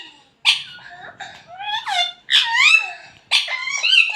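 Parrots calling: a string of shrill squawks and whistles that slide up and down in pitch, several in quick succession, the loudest a little past halfway.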